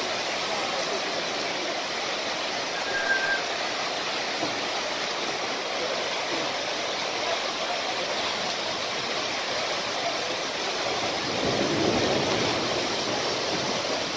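Floodwater rushing fast down a street, a steady noisy rush of water that swells a little louder about three-quarters of the way through.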